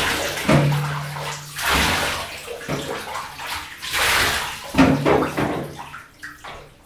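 Water poured from a plastic cup over a small wet dog in a bathtub, splashing into the shallow bath water in several pours and fading near the end.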